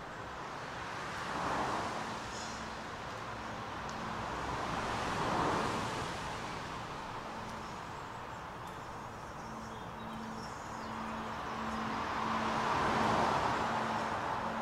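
Traffic passing overhead, three vehicles swelling past one after another. A low electronic tone from a Bluetooth speaker beeps on and off underneath.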